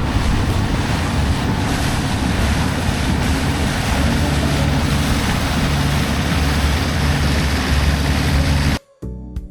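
Boat engine running steadily under heavy wind noise on the microphone and rushing water. It cuts off suddenly near the end, replaced by piano music.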